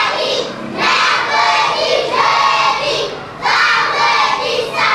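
A class of young children shouting out together, many voices at once, in about four bursts with short dips between them.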